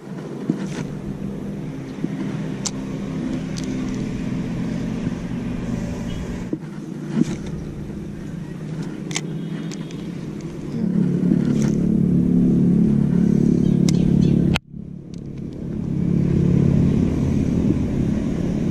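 A motor running steadily, louder for a few seconds past the middle, with a sudden brief drop-out near the end. A few light clicks sit on top.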